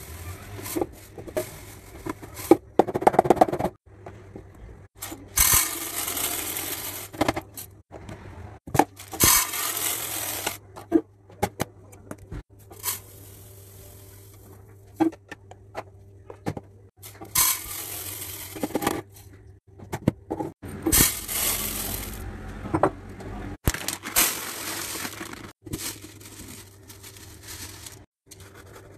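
Dry foods poured into plastic storage containers: fine vermicelli, bulgur and rice rattling and rushing into the bottom of each container in several pours of a second or two each. Short clicks and knocks of containers being handled come between the pours.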